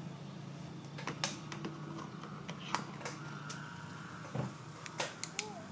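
Scattered light clicks and taps as multimeter test leads are handled, over a steady low hum.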